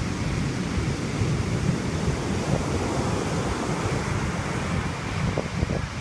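Heavy storm surf: big waves breaking and foam washing up the beach in a steady roar, with wind buffeting the microphone in a low, uneven rumble.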